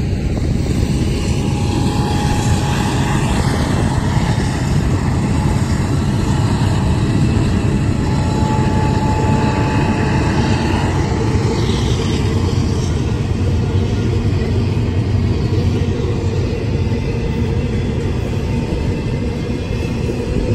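A string of Union Pacific diesel-electric locomotives, mostly EMD SD70Ms, running past at close range, then double-stack container cars rolling by on the rails: a steady, loud, low rumble.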